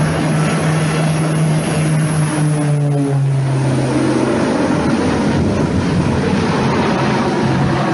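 Twin-engine propeller airplane running as it passes low by and climbs away, a steady engine and propeller drone that drops in pitch about three seconds in as it goes past.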